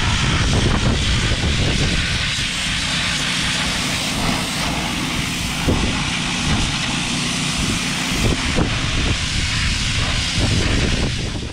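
Pressure washer running steadily, its water jet hissing against rusty sheet-steel tractor battery-box parts to blast off loosened rust and paint, with a low motor drone underneath and a few brief knocks.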